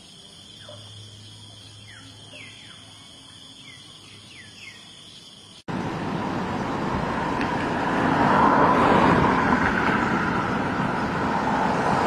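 A few short bird calls sliding downward, over a faint steady high hum. About halfway through, a sudden cut brings in a much louder, even rushing noise that swells and then holds.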